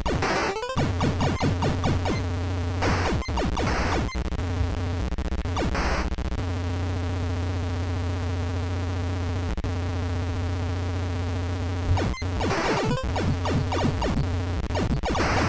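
Background electronic music with sustained synthesizer chords and short busy passages.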